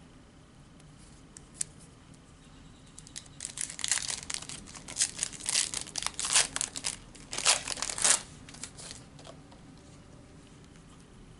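A foil Panini Prizm trading-card pack being torn open and its wrapper crinkled: a run of crackling bursts over several seconds, loudest in the middle.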